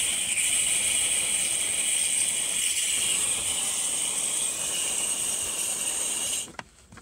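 Compressed air at about 20 psi blowing the water out of an RV's outside shower wand to winterize the fresh water lines: a steady hiss of air and water spray, the line emptying. It cuts off suddenly near the end.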